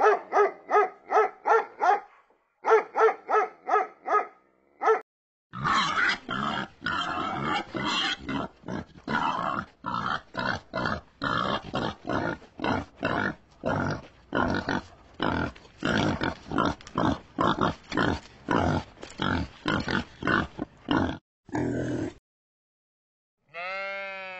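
A dog yapping in quick runs of high barks, followed by a pig grunting and oinking in a steady rapid rhythm for most of the time. A bleat begins at the very end.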